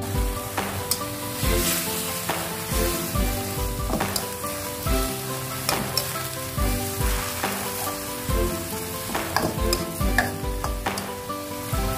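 Pea sprouts sizzling in a hot aluminium wok as they are stir-fried, a steady frying hiss broken by the scrapes and taps of a slotted spatula against the pan. Soft background music runs underneath.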